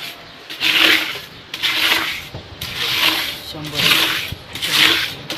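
Rhythmic rasping scrape, about one stroke a second, with faint voices underneath.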